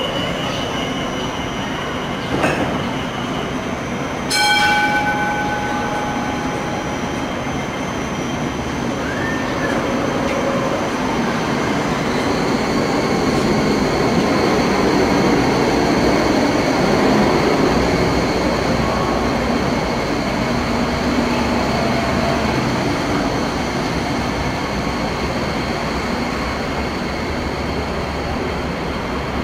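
Hong Kong Light Rail car pulling out of the platform. A ringing tone sounds about four seconds in, then the car's steady high motor whine and the noise of its wheels on the rails grow louder as it passes and ease off as it pulls away.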